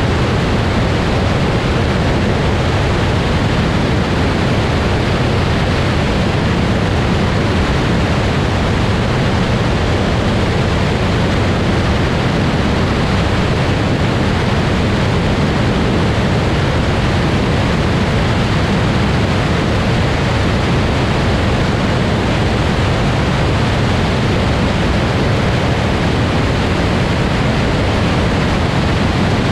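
Steady rushing slipstream wind over a camera mounted outside a Grumman Tiger light aircraft in cruise flight, with the aircraft's engine drone blended in. The noise is even and unbroken, heaviest in the low range.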